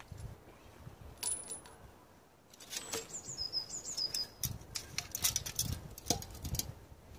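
Metal tools clicking and knocking against an old washing-machine motor as its shaft pulley is worked by hand with pliers. A bird chirps a quick series of short, high, falling notes near the middle.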